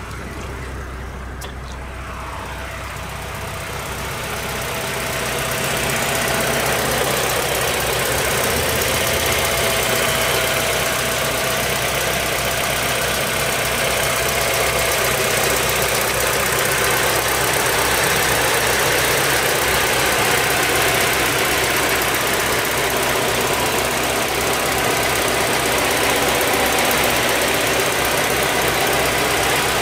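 Alfa Romeo 147's 2.0-litre 16-valve Twin Spark four-cylinder engine idling steadily. It is heard first from inside the car, then louder from about five seconds in, up close under the open bonnet.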